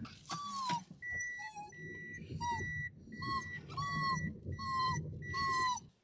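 A car's electronic in-cabin beeper sounds seven even, steady high beeps, about three every two seconds. Between the beeps a dog whines in short cries that bend up and down in pitch.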